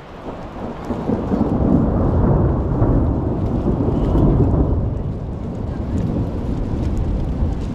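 Thunder rolling over steady rain: a low rumble swells about a second in and dies down after about five seconds, leaving the rain.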